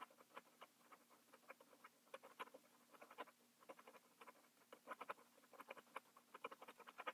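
Colored pencil scratching across paper in short, quick strokes, several a second at an uneven pace, as dark fur is hatched in.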